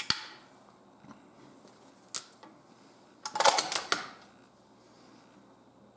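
Bolt-action rifle's bolt being worked by hand: a click at the start, a sharp metallic click about two seconds in, then a quick run of metallic clicks and scrapes around three and a half seconds in as the action is cycled.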